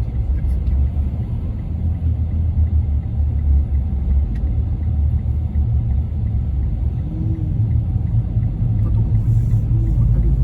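A car driving at road speed: steady low rumble of road and engine noise.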